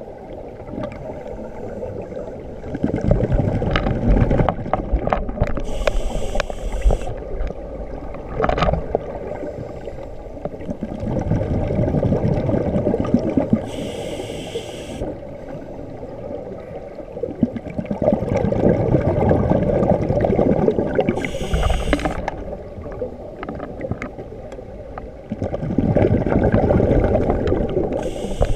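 Scuba breathing through a regulator, heard underwater: a few seconds of bubbling exhalation, then a short hiss of inhalation, repeating about every seven to eight seconds, four breaths in all.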